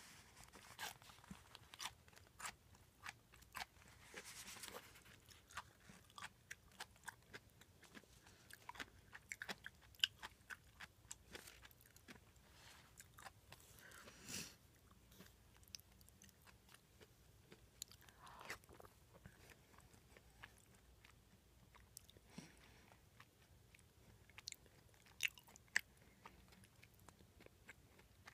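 Close-miked chewing: wet mouth clicks and soft crunches coming in many short, irregular bursts, with a few sharper clicks standing out.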